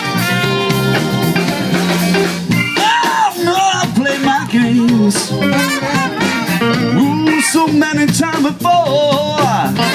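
Live band playing an upbeat blues number: saxophones and trumpet hold a chord that ends about two and a half seconds in, then drums and guitar carry on under a sliding, bending melody line.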